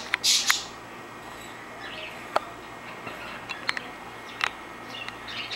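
Small birds chirping now and then, with several sharp clicks and a short hissy burst just after the start, over a steady low hum.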